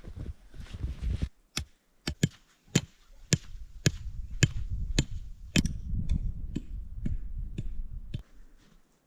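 A hand tool striking repeatedly: a dozen or so sharp knocks about two a second over a low rumble, stopping shortly before the end.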